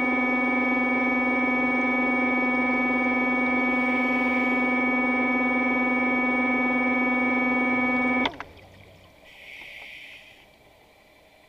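A loud, steady synthesizer drone of background music holding one chord, cutting off suddenly about eight seconds in. After it comes faint underwater ambience with a short hiss of a scuba diver's exhaled bubbles.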